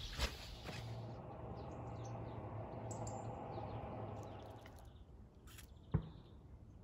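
Faint bird chirps over a low, steady hum, with a single sharp click about six seconds in.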